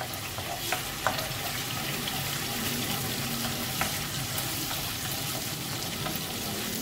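Ginger-garlic paste sizzling in hot oil in a non-stick frying pan while being stirred with a spatula, with a few light clicks of the spatula against the pan.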